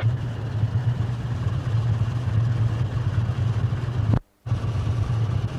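Low, steady rumble of a large ship's engine running, cut off for a moment about four seconds in and then carrying on.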